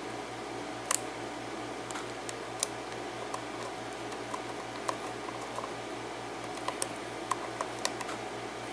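Scattered light clicks and taps of tools working on the back end of a Brinks padlock held in a vise, over a steady low hum.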